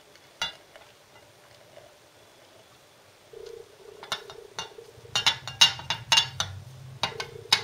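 Silicone spatula scraping corn flour out of a ceramic bowl into a glass jug of milk, the bowl and spatula clinking and knocking against the jug's rim. One knock about half a second in, then from about four seconds a quick run of sharp clinks, several a second.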